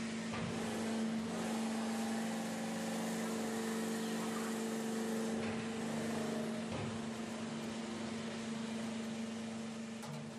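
Sink deep-drawing press running with a steady mechanical hum over a broad hiss.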